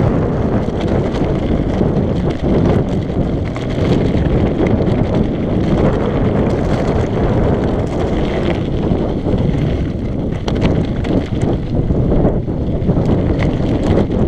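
Mountain bike descending a loose gravel track: steady wind noise on a GoPro's microphone, with tyres rolling over stones and scattered small clicks and rattles from the bike.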